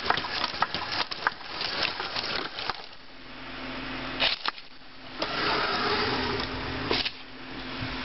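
Tekno robotic puppy's small geared motors running as it walks, with a rapid series of clicks and knocks from its plastic legs and feet on a wooden table, and a stretch of steadier motor noise a little past halfway.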